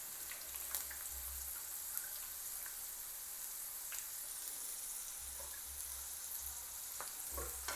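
Cornflour-coated sweet corn kernels deep-frying in hot oil: a steady high sizzle with scattered small pops and crackles.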